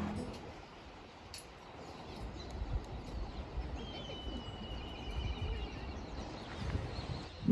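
Outdoor background noise with a low rumble, over which a bird gives one thin, wavering call lasting about two seconds, starting about four seconds in. Music fades out at the very start.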